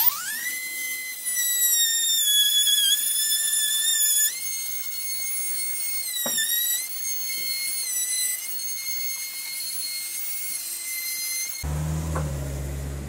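Ryobi cordless trim router running at full speed with a high, steady whine, flush-trimming hardwood. Its pitch dips briefly a few times as the bit bites into the wood. The whine cuts off suddenly near the end.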